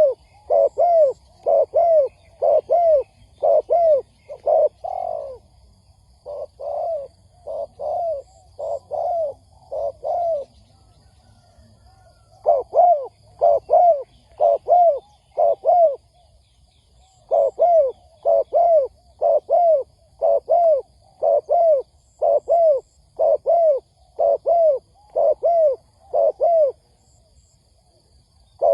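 Spotted dove (cu gáy) cooing in quick runs of short coos, about two a second. There are four runs with brief pauses between them, and the second run is softer.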